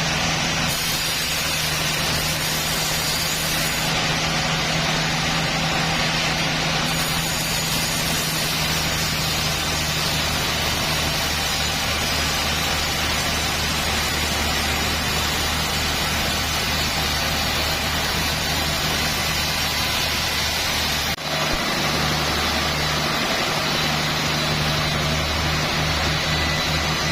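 Sawmill machinery running steadily: a constant low engine-like hum with a hiss over it, briefly dropping out about 21 seconds in.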